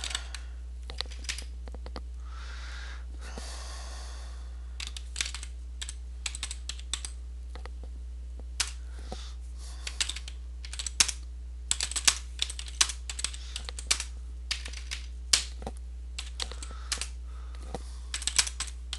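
Typing on a computer keyboard: keystrokes in uneven runs with short pauses, over a steady low hum.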